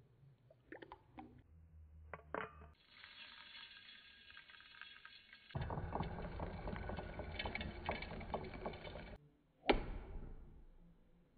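Cornflour slurry and sugar being mixed and poured in a steel pan: a few light clinks, then a steady pouring and rustling noise. A single sharp knock comes near the end.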